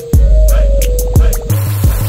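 Background music with a steady beat: deep kick drums, fast hi-hat ticks and a held note.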